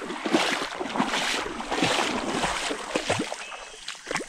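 Water splashing and sloshing in short, irregular bursts, growing quieter in the last second or so.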